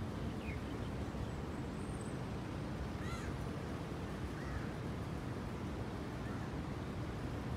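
Steady low hum of city traffic, with a few short bird calls about half a second, three seconds and four and a half seconds in.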